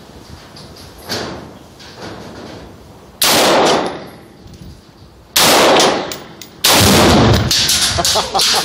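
Three very loud gunshots, the first about three seconds in, then two more about two seconds and a second and a half apart. The third is the heaviest, with a deeper boom.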